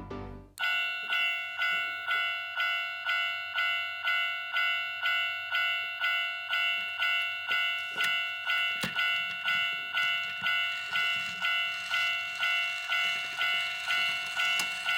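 Toys Cabin 1/24 toy railroad crossing sounding its electronic warning bell through its small speaker: a repeating Japanese crossing 'kan-kan' ding at about two strikes a second. Background music cuts off about half a second in, just before the bell starts.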